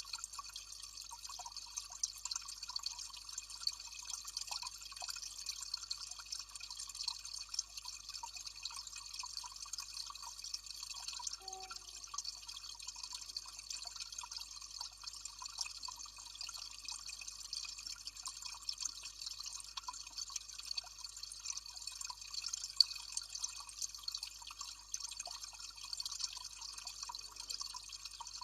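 Small water cascade trickling and dripping steadily, with constant light splashes and one sharper tick a little over three quarters of the way through.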